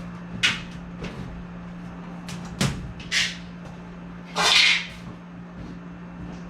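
Metal HVAC parts being handled: a few short knocks and rattles, then a louder, longer scrape about four and a half seconds in, over a steady low hum.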